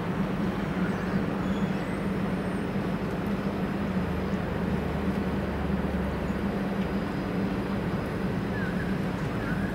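Diesel engine of a long-reach demolition excavator running with a steady drone, a deeper note joining about four seconds in and dropping away about three seconds later.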